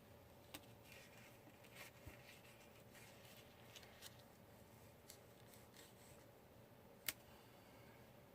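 Near silence with faint scattered clicks and rustles of paper scrapbook pieces being handled and laid out, and one sharper click about seven seconds in.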